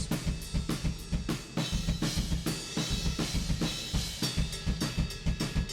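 Recorded drum kit (kick, snare and cymbals) playing a steady beat of many hits, processed through the Lindell 254e compressor plugin set as a limiter with auto release, which holds the peaks down.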